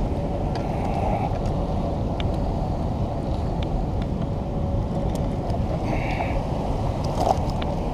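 Steady rush of water pouring through a spillway, with a few faint clicks.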